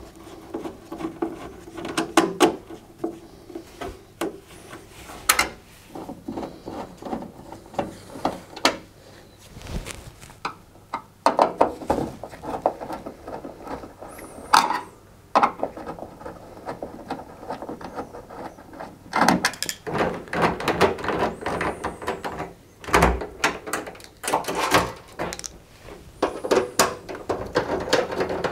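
A hand screwdriver undoing the screws in a tumble dryer's sheet-metal back panel, with irregular clicks, scrapes and rattles of the tool and screws against the metal. The handling noise gets busier in the second half.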